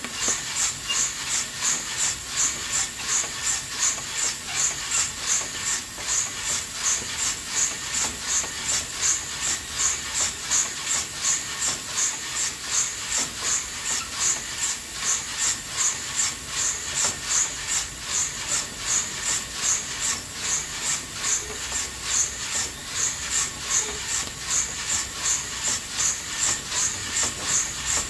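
Coffee beans roasting in an old-fashioned coffee roaster over a wood stove: a rhythmic hissing swish that swells and fades about twice a second as the roaster is turned and the beans slide inside.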